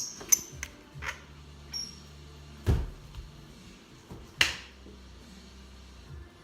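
A few scattered taps and knocks, with one louder thump about two and a half seconds in and a short scuff or scrape a couple of seconds later, over a faint low steady hum.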